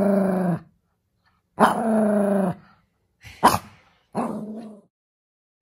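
Yorkshire terrier letting out four drawn-out, grumbling barks, each sliding slightly down in pitch, the second the longest and a short sharp one near the middle. This is the dog scolding her owners: demanding barks to be taken out.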